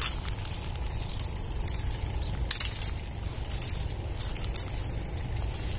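Leafy branches rustling and twigs crackling as they are bent and handled, with a few sharp crackles, loudest about two and a half seconds in.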